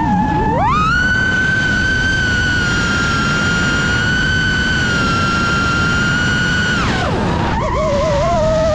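Brushless motors of an iFlight Titan DC5 5-inch FPV quadcopter whining, the pitch rising about half a second in as the throttle comes up, holding a steady high whine, then dropping near the end and wavering lower with throttle changes. A steady rush of wind runs underneath.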